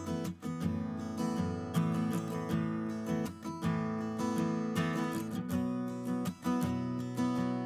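Background music: a strummed acoustic guitar tune.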